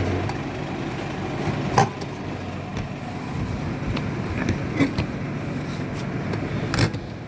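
Truck refrigeration system running after repair: a steady low mechanical hum, with three sharp clicks or knocks about two, five and seven seconds in.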